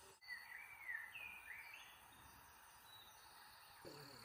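Near silence with a faint bird call: a few whistled notes that glide up and down during the first couple of seconds.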